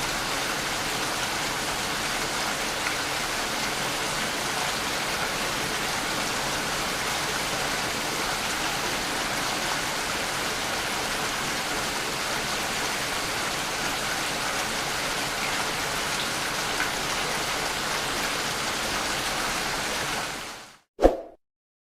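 Steady, even rain falling, a continuous hiss with no pauses, that fades out near the end. A single short, loud sound follows just before the end.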